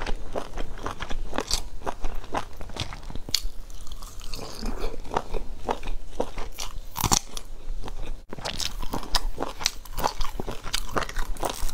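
A person eating: crisp, irregular crunching and chewing mouth sounds, with a brief dropout about eight seconds in.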